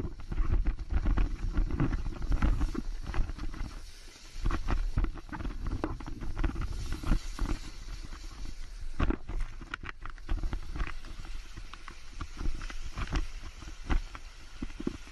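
Water rushing and spraying around a board towed fast across floodwater, with wind buffeting the microphone in irregular gusts. The low rumble is heaviest in the first few seconds, then eases.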